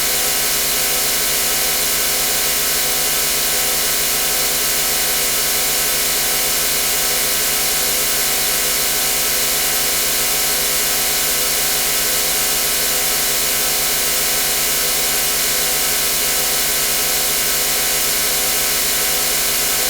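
Synthesized machine-room sound effect: a steady drone like motors and other rotating machinery, with a slow, regular wan-wan-wan throb over a bright hiss.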